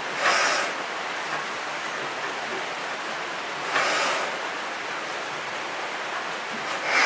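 Crossley Bros horizontal stationary engine running with its heavy flywheels turning, firing only once every few seconds: a noisy exhaust chuff comes three times, about three and a half seconds apart, over a steady hiss.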